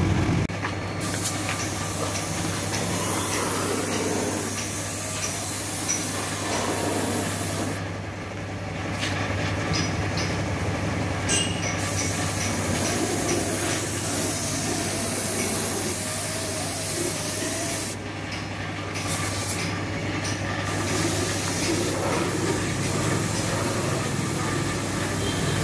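Compressed-air paint spray gun hissing steadily as green paint is sprayed onto tractor sheet metal, the hiss stopping briefly a few times when the trigger is let off. A steady low hum runs underneath.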